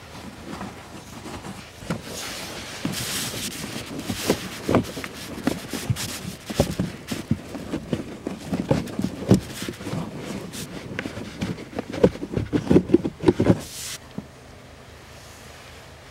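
Handling noise of an old cabin air filter being pulled from its housing and handled over a cloth: rustling of the filter and fabric with scattered sharp plastic clicks and knocks, busiest near the end, then stopping suddenly about two seconds before the end.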